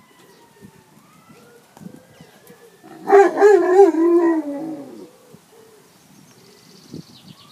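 A Leonberger dog howling: one wavering howl of about two seconds, starting about three seconds in and sinking in pitch as it ends. A siren wails faintly in the background.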